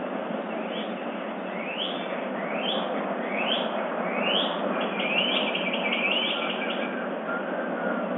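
A songbird singing in the dawn chorus: a string of rising whistled notes about one a second, then a quicker run of notes near the end, over steady background noise.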